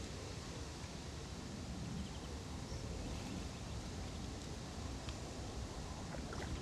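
Steady outdoor background noise, with wind rumbling on the microphone and a few faint clicks near the end.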